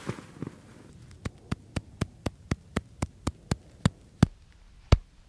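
A series of sharp taps on a tool in a snow pit, about four a second at first, then slower and louder near the end. This is the pattern of the taps in an extended column test of snowpack stability.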